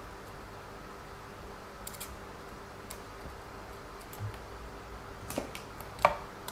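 Scattered light clicks and taps of small screws, a screwdriver and plastic suspension parts being handled on a hobby RC car, the loudest about six seconds in.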